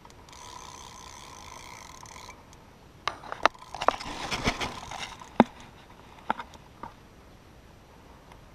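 A fishing reel's clutch buzzes for about two seconds as a hooked carp takes line. Then come a run of sharp taps, knocks and rubbing as a finger handles the camera close to the microphone.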